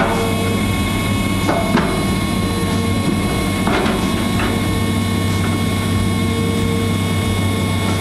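Excavator diesel engine running steadily with hydraulics working, under a steady warning buzzer from the hydraulic quick coupler sounding because it is in the unlocked position. A few light knocks as the coupler is worked onto the bucket's rear pin.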